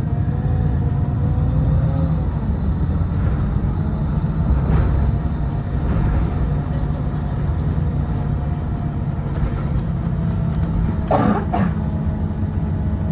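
City bus interior while driving: a steady low rumble of engine and road, with a rising whine in the first couple of seconds. A brief, louder, higher sound comes about eleven seconds in.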